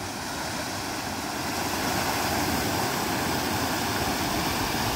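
Stream water rushing over a small concrete weir, a steady splashing hiss.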